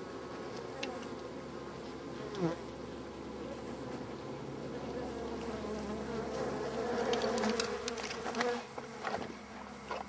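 Honeybees buzzing around a wild hive in a steady hum that swells from about halfway through as more bees come out, a defensive response to someone getting too close. A brief louder sound about two and a half seconds in.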